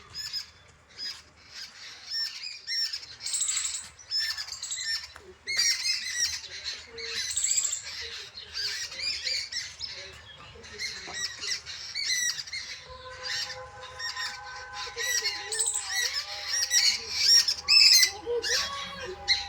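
Many birds calling at once: a dense, busy chorus of overlapping squawks and chirps. From about two-thirds of the way through, a few steady lower tones hold underneath the calls.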